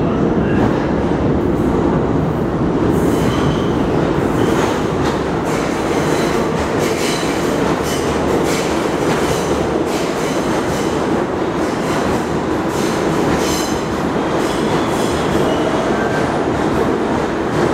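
R142A subway train pulling into an underground station along the platform, its wheels clicking over rail joints, with some wheel squeal on the curved track.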